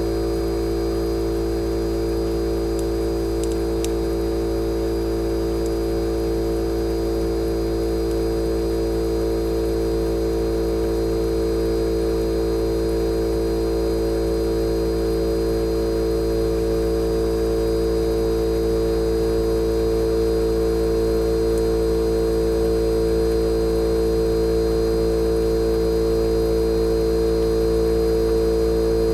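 Fujitsu General AO-C28H inverter air-conditioner outdoor unit running in defrost mode: a steady compressor hum with a strong mid-pitched drone, slowly growing louder as the inverter gradually raises the compressor speed.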